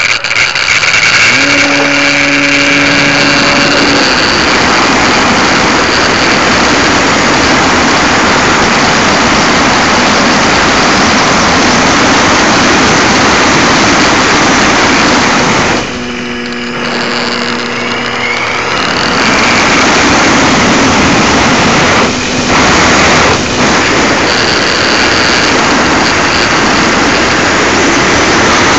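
Loud, steady rushing of an Extra 300 model plane's motor and propeller, together with airflow over the onboard keychain camera's microphone. It eases off for a few seconds past the middle, where a steady hum comes through, then returns to full noise.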